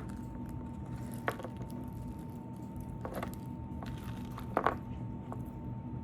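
Slime being kneaded and squished by hand, with three short sticky pops or crackles over a steady low background.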